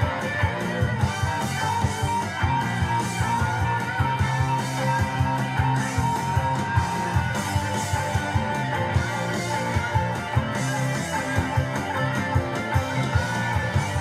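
Rock music: an electric guitar lead over fast, steady drums, holding one long high note through the first half.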